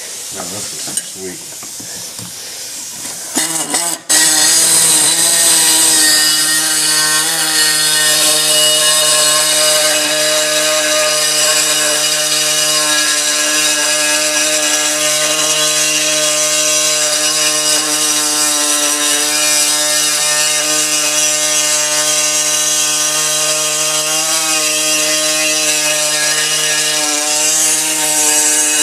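Small handheld power tool running steadily with a high whine as it works on a steel megaphone exhaust tip. It starts about four seconds in, after some handling clatter, and its pitch wavers slightly a few times as it takes load.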